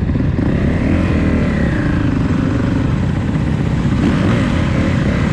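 Motorcycle engines running, with a pitch that rises and then falls about a second in, as one engine is revved.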